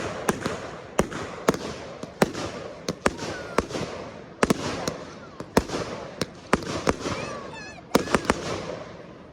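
Fireworks display: a rapid, irregular run of sharp bangs from bursting aerial shells, about one or two a second, with rumbling echoes between them.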